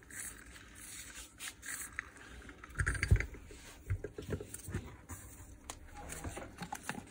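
Polisher parts being handled on a workbench: the armature set down on the table and the plastic motor housing picked up, giving a few knocks and clunks with rubbing and scraping between. The loudest knock comes about three seconds in.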